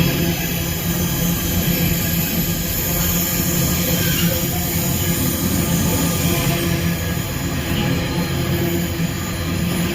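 Freight train running past, a steady noise of wheels and wagons on the track with a low hum that holds the whole time.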